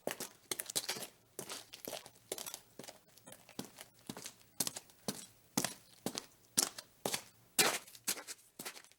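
Footsteps at a steady walking pace, about two steps a second.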